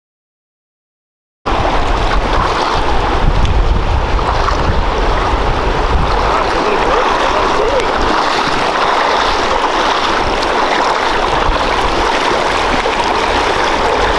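Silence for about a second and a half, then steady rushing river water, with wind buffeting the microphone for a few seconds after it starts.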